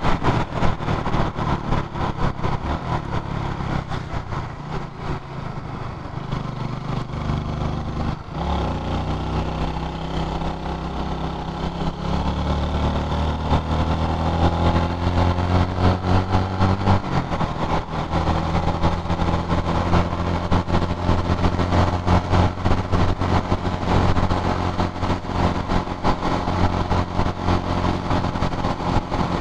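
Honda motorcycle engine under way. It dips briefly about eight seconds in, rises steadily in pitch as it accelerates, drops back around seventeen seconds in, then runs at a steady cruise.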